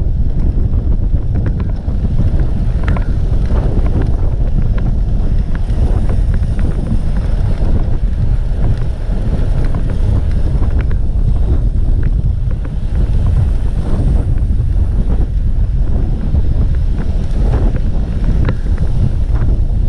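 Loud, steady wind buffeting a moving bicycle's action-camera microphone, a low rumbling rush with a few faint short clicks now and then.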